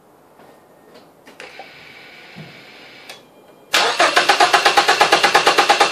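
A four-cylinder car engine being cranked by its starter motor with fuel and ignition disabled, so it turns over without firing: an even, fast chugging of about five pulses a second that starts suddenly about four seconds in. This is the cranking for a compression test, and it comes after a fainter steady whir.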